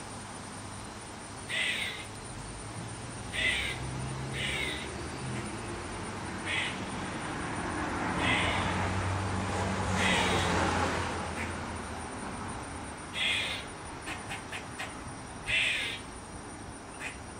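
Eastern gray squirrel giving about ten short, harsh caw-like calls spaced a second or two apart, with a quick run of short clucks about three-quarters of the way through. A low rumble swells and fades in the middle.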